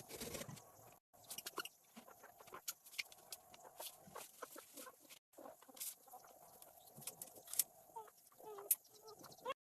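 Poultry calling softly now and then in short calls, amid many small scattered clicks and taps.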